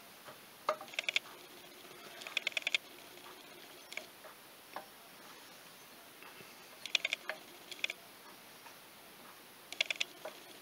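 Short runs of quick, light metallic ticks, repeated every second or two: a Polaris two-stroke counterbalancer gear clicking against the crank gear and its shaft as it is worked by hand into mesh.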